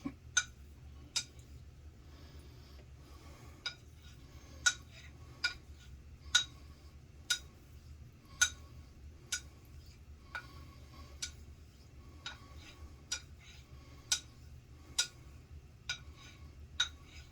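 6/8 quarter-hollow straight razor being honed on a Suehiro 10K Koseki water stone: a sharp click about once a second as the razor is turned over on its spine at the end of each stroke, with a pause of a couple of seconds early on.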